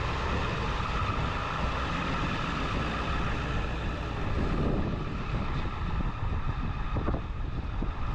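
Ford F-350 pickup's engine running as the truck drives away, a steady rumble with a faint steady whine over it.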